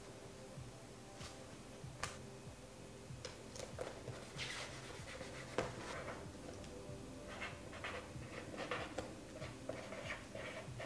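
Faint handling clicks and rustles of a chalkboard sticker label, then a chalk marker pen writing on the label on a plastic bin: light, quick scratching strokes in the second half.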